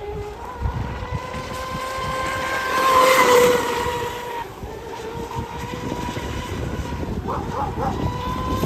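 YPC electric outboard on a radio-controlled F1 tunnel-hull boat whining at speed: a steady high note with a higher overtone, loudest as the boat runs close about three seconds in. Gusting wind rumbles on the microphone underneath.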